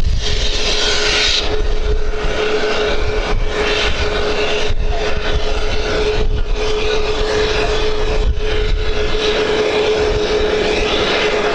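Airliner engines running with a steady droning tone, over a low rumble of wind on the microphone.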